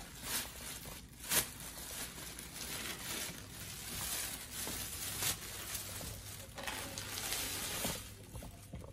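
A thin plastic delivery bag rustling and crinkling as hands rummage inside it, in uneven spells with a few sharper crackles, the loudest about a second and a half in.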